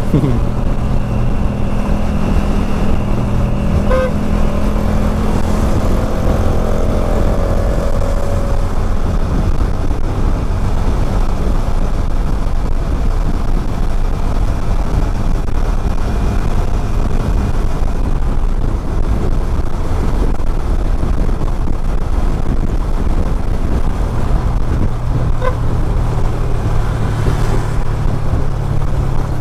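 Motorcycle riding through traffic heard from a body-mounted action camera: steady wind rush and road rumble over the motorcycle's engine running. Two short horn toots, one about four seconds in and one near the end.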